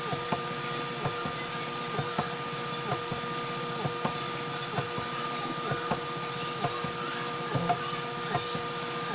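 Homemade 3D printer running as it prints a part: a steady machine whine with a short falling chirp about once a second as the print head moves back and forth.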